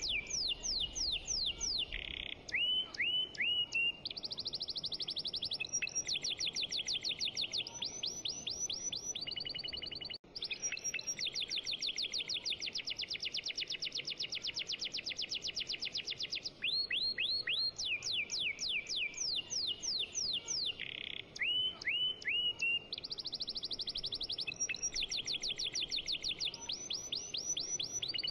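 Background sound track of rapid bird chirping: fast rising and falling chirps and trills in repeating runs, looped so that the same sequence comes round again, with a brief dropout about ten seconds in.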